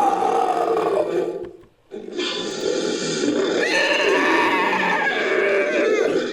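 Made-up creature calls for a humanoid hawk, built from layered animal, creature and human-voice recordings: a long call that breaks off about a second in, then after a short pause a second call of about four seconds with a higher cry rising in partway through.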